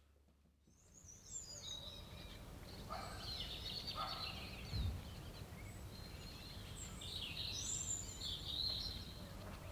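Outdoor ambience of small birds chirping and singing, over a steady low rumble. A brief low thump about five seconds in.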